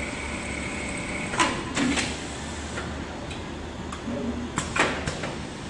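Automatic placket setting machine with a single-needle sewing head: a steady hum with a high whine that stops about a second and a half in, then a few sharp clicks and knocks from its mechanism as a shirt panel is loaded.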